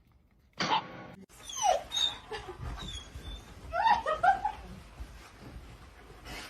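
A dog whining in short, high, wavering whimpers, with a quick cluster of rising and falling cries about four seconds in.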